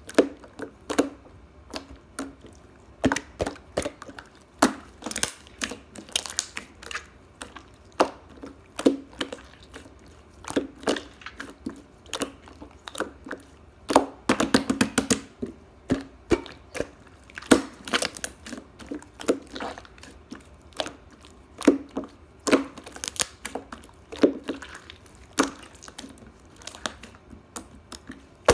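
Close-up irregular crunching and crackling: sharp clicks come several times a second, with a denser run of crackles about halfway through.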